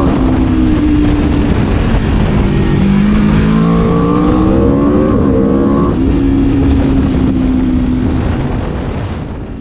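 Aprilia RSV4's V4 engine revving hard, its pitch climbing and dropping repeatedly as it runs up through the revs and shifts, fading out near the end.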